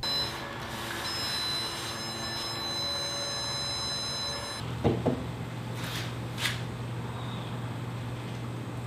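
Electronic stud finder sounding a steady high beep for a few seconds, its signal that it is over a wall stud. It cuts off, and then come a soft knock and two short scratches.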